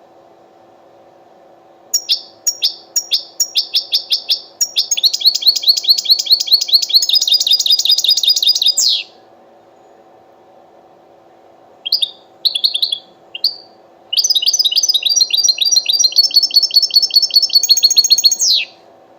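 European goldfinch singing in fast runs of repeated high chirps. The first run starts about two seconds in as separate notes, speeds into a rapid trill and lasts about seven seconds. After a pause and three short notes, a second rapid run goes on for about four and a half seconds.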